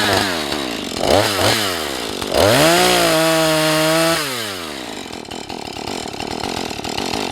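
Husqvarna 435 two-stroke chainsaw revved in a few short blips, then held at full throttle for about two seconds before dropping back to a steady idle.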